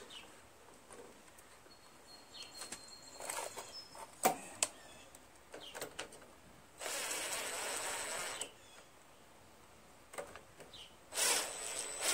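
Cordless power driver on a long extension running the carburetor and air-cleaner mounting bolts into a Honda GCV160 engine, in two short runs: one about seven seconds in lasting nearly two seconds, and another starting near the end. Before them come a few light clicks and knocks of parts being handled.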